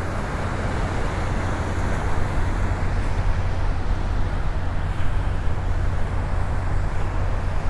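Steady wash of small waves breaking on a sandy beach, under a low, even rumble of wind on the microphone.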